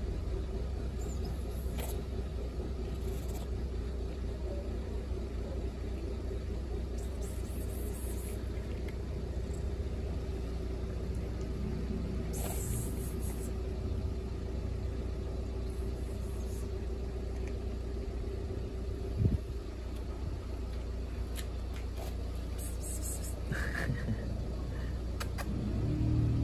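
Steady low rumble with a steady hum that stops about two-thirds of the way in, and a short thump just before it stops. Over it come faint, scattered crunches of cats chewing dry kibble.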